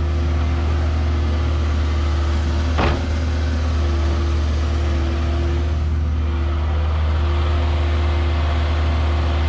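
Diesel engine running at a steady speed, with a single short knock about three seconds in.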